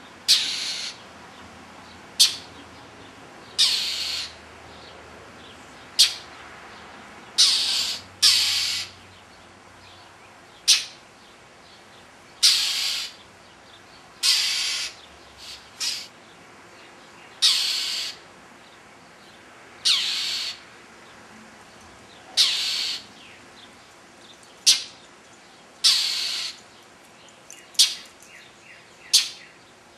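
Northern mockingbird giving harsh, raspy scolding calls, one every second or two, some short and clipped and some drawn out: alarm calls at a stalking cat.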